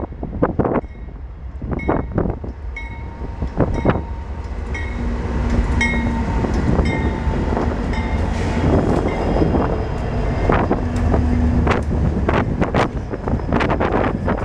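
Diesel freight train passing close by: its locomotives, a GE C44-9W, an EMD SD70MAC, a GE ES44DC and an EMD SD40-2, rumble past, growing louder about four seconds in. Near the end the freight cars follow with the rapid clacking of wheels over rail joints.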